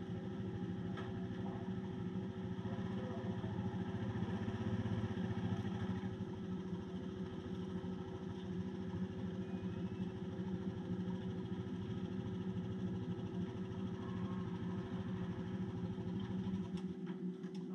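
Motorcycle engine running at a steady pitch, its low rumble dropping away near the end.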